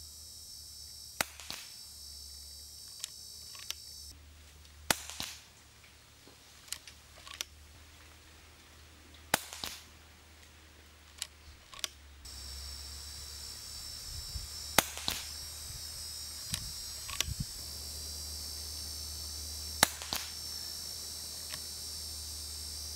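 Daystate Red Wolf HP 5.5 mm PCP air rifle firing a series of shots a few seconds apart, each a sharp crack, most followed a fraction of a second later by a second, fainter crack.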